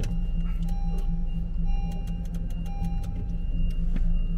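Music playing over the steady low rumble of a car heard from inside the cabin.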